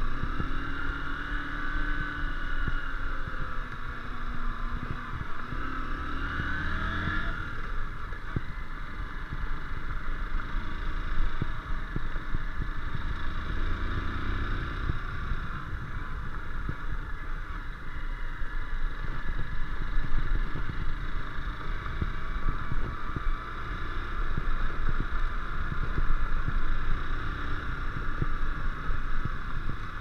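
Honda CBF150's single-cylinder engine running at low speed, its pitch rising and falling a few times as the throttle changes, under steady wind rumble on the microphone.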